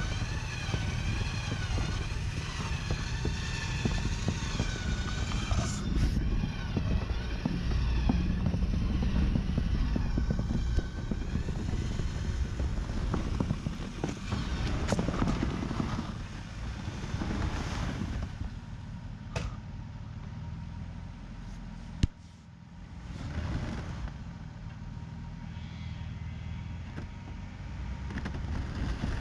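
Pickup truck engines running hard under load as a stuck Dodge Ram 1500 is pulled out of snow on a tow rope, with a wavering high whine over them in the first few seconds. The engines ease off about two thirds of the way through, and a single sharp knock follows.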